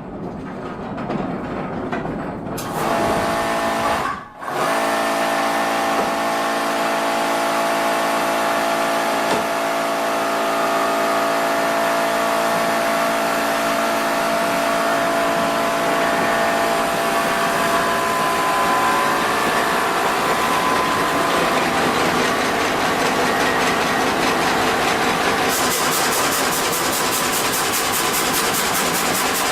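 Wood-processing machinery running steadily: a motor hum with several steady tones over mechanical noise. The sound breaks off briefly about four seconds in, and shifts near the end to a higher sound with a fast even rhythm.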